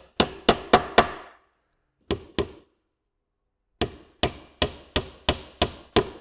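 Small hammer driving 1-inch steel pins through a plywood panel into the wooden frame of a beehive roof: a quick run of about four sharp blows, two more, a pause of about a second, then a steady run of about seven blows.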